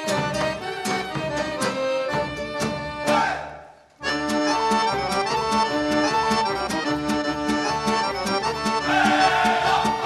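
Folk accordion playing a fast dance tune over a steady drum beat. About three seconds in the music fades out, and a second later it starts again sharply.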